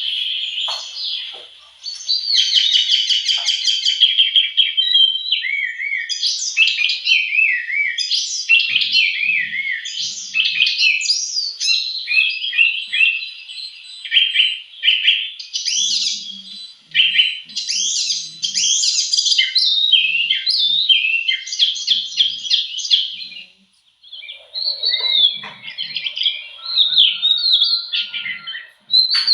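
Small birds chirping and singing almost continuously, a dense run of quick sweeping notes and rapid trills with a brief pause about two-thirds of the way through.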